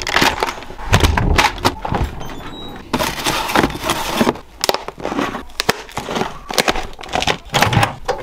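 A quick run of clicks, knocks and rustles from handling things: a front door's lever handle and lock worked, then food packaging pulled from a fridge or freezer, and a microwave being loaded.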